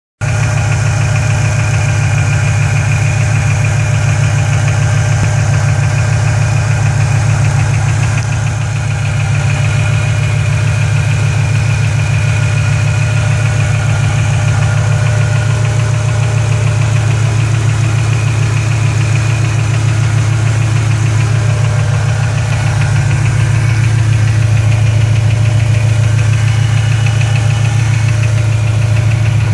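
Ford Shelby GT500 V8 idling steadily at normal operating temperature, with a rapid ticking over the engine note.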